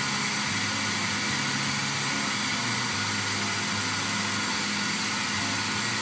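Countertop blender motor running steadily at speed, churning water, baking soda and dish soap into a foam that fills the jar for a cleaning cycle.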